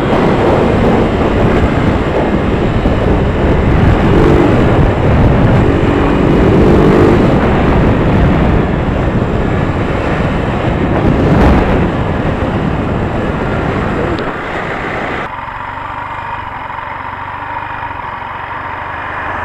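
Motorcycle ridden at speed, its engine buried under heavy wind rush on the onboard microphone. About 15 seconds in the rush drops away and the engine settles to a quieter, steadier note as the bike slows.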